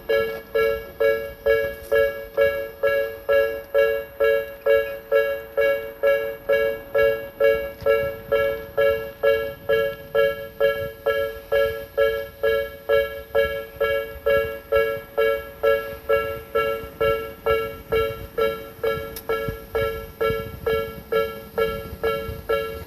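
Tobu Railway level-crossing warning bell of the Nikko type ('Tobu sound B'), ringing steadily: an electronic two-tone ding repeated about twice a second.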